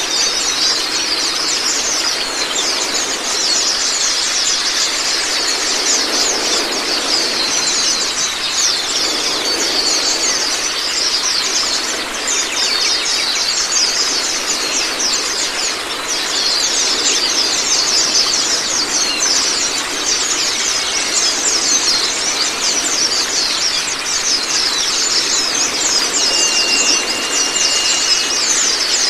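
White-eyes (Zosterops) chirping in a dense, unbroken stream of rapid high twitters and short trills, with an occasional held whistle, over a steady rush of flowing water.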